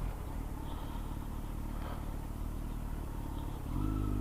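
Kawasaki Z900 inline-four engine running quietly at low revs. About three and a half seconds in, the revs rise to a louder, steady note.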